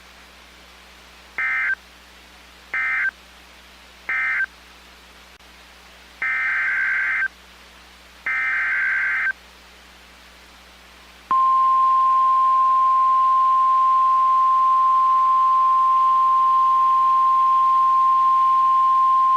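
NOAA Weather Radio Specific Area Message Encoding (SAME) data bursts: three short buzzy bursts that close the previous warning, then two longer bursts of a new header. About eleven seconds in comes the steady 1050 Hz warning alarm tone, held for about nine seconds, which signals that a new warning follows.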